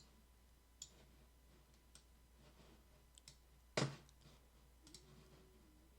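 Computer mouse clicking a few times at irregular intervals, faint apart from one sharper click nearly four seconds in.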